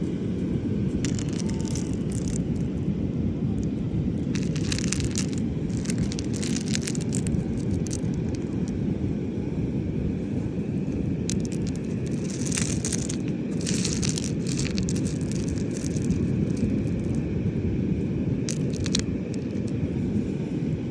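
Steady wind and surf rumbling on the microphone at the beach, with short crackling, rattling bursts several times.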